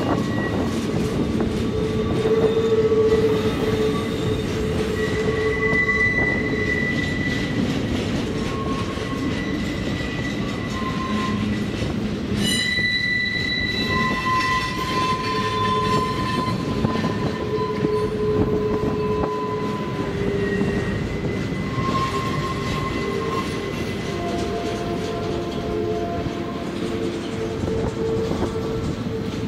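Canadian National double-stack container cars rolling through the tight curve of a rail cloverleaf. The wheels rumble steadily on the rail while the flanges squeal in thin whines that come and go at changing pitches, turning shrill for a moment near the middle.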